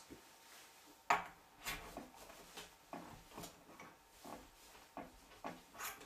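Small clicks and scrapes of hand-loading work: a knife and a split hardboard wad disc handled at a brass shotgun case. There is one sharp click about a second in, then faint, irregular ticks.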